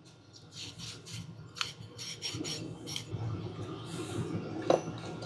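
Hand file rasping on a part of a vintage Bosch starter motor in short, quick strokes, with a sharp click near the end.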